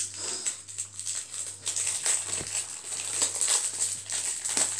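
Trading-card booster pack wrappers crinkling and cards rustling as they are handled, an irregular run of rustles and small clicks, over a faint steady low hum.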